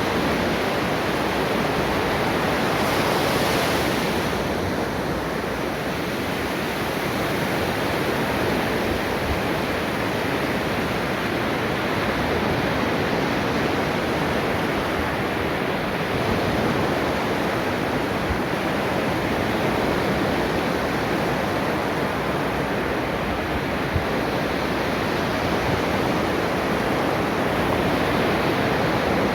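Ocean waves washing onto a shore: a steady rush of surf, with one brighter, hissing surge about three seconds in.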